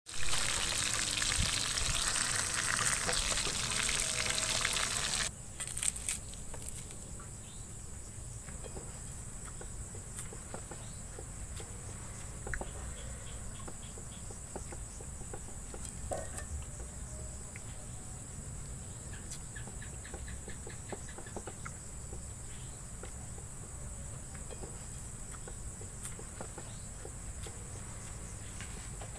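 Fish sizzling in hot oil in a frying pan over an open fire, loud and hissing for the first five seconds, then cutting off. After that a steady high-pitched drone of crickets, with a few faint clicks.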